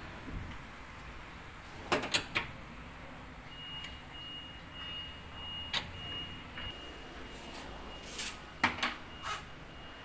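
Knocks and clicks from handling a washing machine's cabinet and feet: three quick knocks about two seconds in, one near the middle, and a cluster near the end. A faint steady high tone comes in about a third of the way through.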